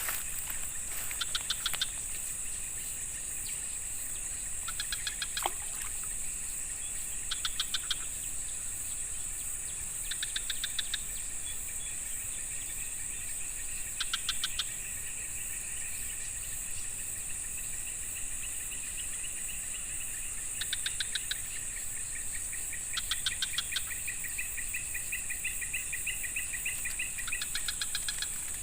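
Steady high-pitched insect drone, with short rapid chirping bursts repeating every couple of seconds and a longer trilling call near the end.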